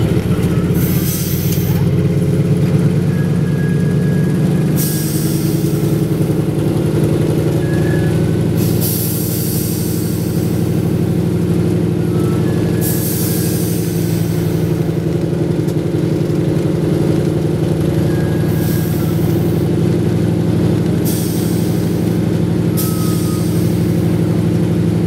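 Antonov An-2's nine-cylinder radial engine running steadily, heard from inside the cabin as the biplane taxis over grass. Every few seconds a short burst of hiss cuts in, typical of the An-2's pneumatic brakes being applied.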